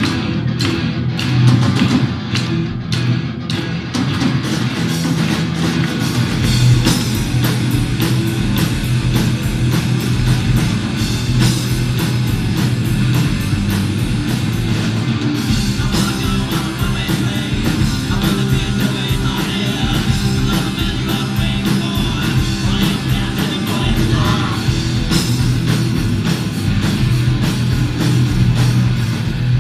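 Rock band playing live through a loud PA, with electric guitars, bass and drums. The sound fills out with deep bass about six seconds in.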